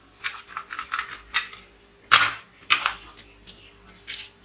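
Plastic toy guns being handled: a run of irregular sharp plastic clicks and knocks, the loudest a little after two seconds in.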